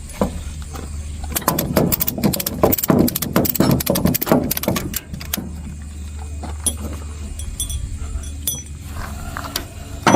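A quick run of sharp metallic clicks and clanks for about three seconds, then scattered clicks, over a steady low hum.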